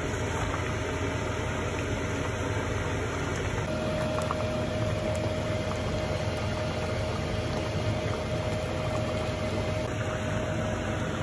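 A steady low rushing hum of kitchen machinery, with a thin steady whine that comes in about four seconds in.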